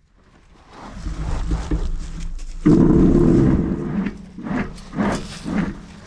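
A Rhodesian Ridgeback dog close to the microphone, with a loud low rumbling noise for about a second and a half near the middle, followed by a few short scuffs.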